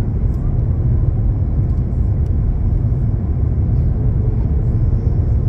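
Steady, even rumble of an airliner cabin during descent, the engines and rushing air heard from a window seat.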